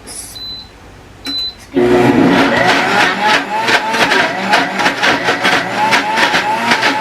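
Two short high beeps, then about two seconds in a countertop blender motor starts and runs loudly. Its pitch wobbles up and down, with knocking, as the blades churn the contents.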